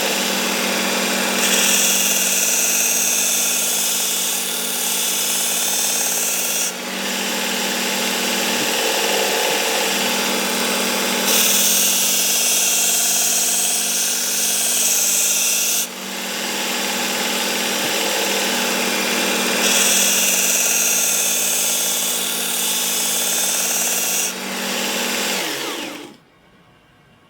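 Work Sharp Ken Onion Edition belt sharpener with its blade grinding attachment running steadily on a coarse 120-grit belt. Three passes of a thick meat cleaver's edge against the belt each add a bright hiss lasting four to five seconds. Near the end the motor switches off and winds down with a falling whine.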